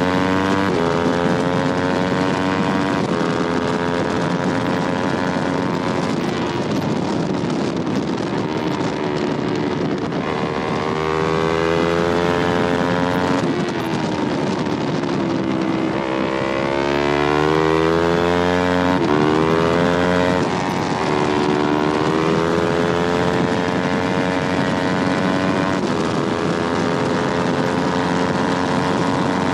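Yamaha R3's 321 cc parallel-twin engine at race pace, its pitch climbing and dropping several times with sudden steps at the gear changes as the bike accelerates and slows for corners, over a steady wind rush.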